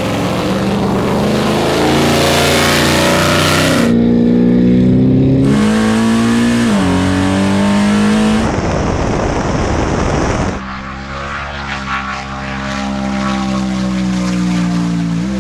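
Big Red, a big-block 1969 Chevrolet Camaro race car, launching and accelerating hard at full throttle. The engine's pitch climbs, then drops back and climbs again several times as it goes up through the gears. About two-thirds of the way through there are a couple of seconds of rushing noise, and after that a steady high engine note.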